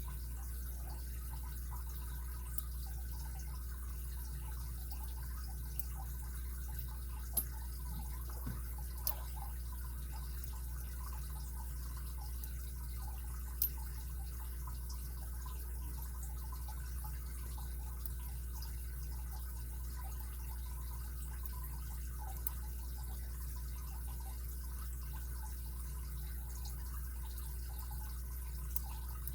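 Scattered faint clicks and ticks of a lock pick working the pins of a security-pinned Kryptonite padlock, with two sharper ticks about seven and a half and thirteen and a half seconds in, over a steady low hum.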